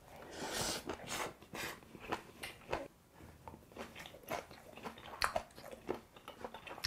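A man chewing a big mouthful of raw-beef bibimbap close to the microphone: a quick, irregular run of short chewing sounds, two or three a second.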